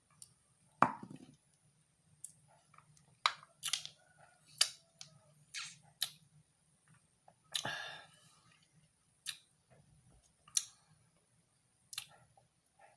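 A series of irregular sharp clicks and light knocks, about a dozen in all, with one longer rasping scrape about halfway through.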